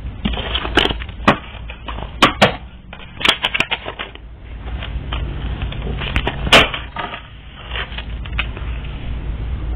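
Reading cards being shuffled and handled: scattered sharp snaps and clicks over a rustling noise, with the loudest snap about two thirds of the way through.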